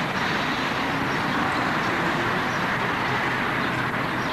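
Steady rushing outdoor noise with no distinct events, holding an even level throughout.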